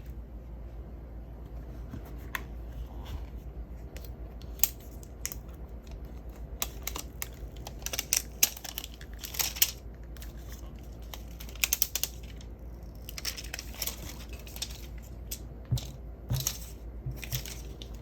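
Packaging being handled by hand during an unboxing: crinkling and tearing of wrap with many sharp clicks and light knocks, busiest in the middle and latter part, over a steady low hum.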